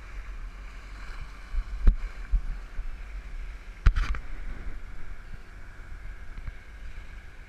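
A sailboat moving under sail, with water hissing along the hull and a steady low wind rumble. Two sharp knocks come about two and four seconds in.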